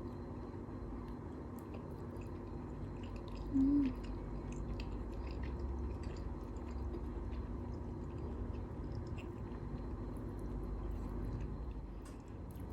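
A person eating soft cheese tteokbokki rice cakes: faint chewing and mouth sounds over a steady low hum, with one short, loud hummed "mmm" about three and a half seconds in.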